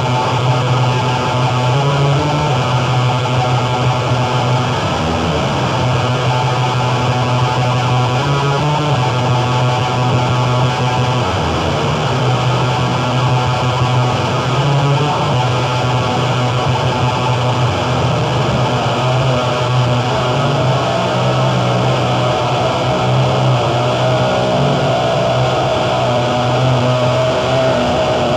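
Live noise music: a loud, dense, unbroken wall of distorted noise over a low drone that drops out now and then. A wavering mid-pitched tone comes to the fore in the last several seconds.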